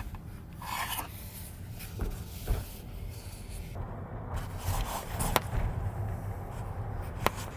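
Handling noise of a camera being set and taped in place: rubbing and scraping against the mount and table, with a couple of sharp clicks, over a steady low rumble.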